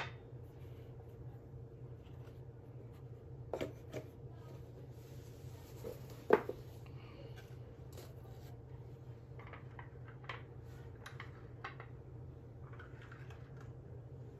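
Small porcelain tea cups clinking and tapping as they are picked up and set down on a glass tabletop, the sharpest clink a little past six seconds in, with some rustling of paper packaging. A steady low hum runs underneath.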